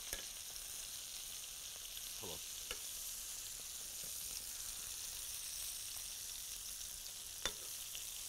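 Beef fillet medallions searing in butter in a hot frying pan: a steady high sizzle, with three sharp clicks, the loudest near the end.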